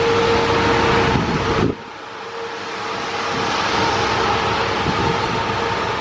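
A motor vehicle running close by: a steady hum over a broad rumble, which drops off sharply a little under two seconds in and then builds back up.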